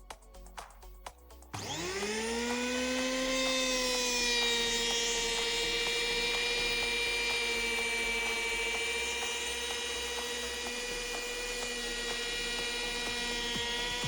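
Parkside PEH 30 E5 750 W electric planer switched on about a second and a half in, its motor and cutter head spinning up with a rising whine and then running steadily at speed without cutting. A few clicks come before it starts.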